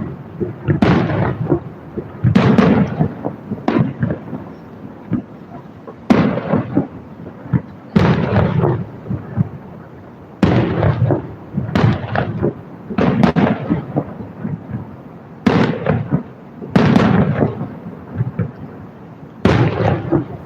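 Fireworks shells bursting overhead: about a dozen loud booms, one to two seconds apart, each trailing off in a rolling rumble.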